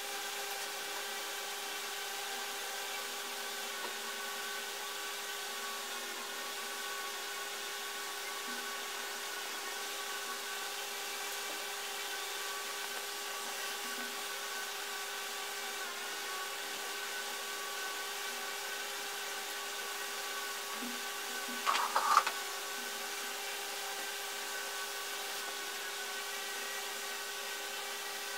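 A steady mechanical hum made of several fixed tones that does not change. About three-quarters of the way through comes a brief cluster of louder knocks.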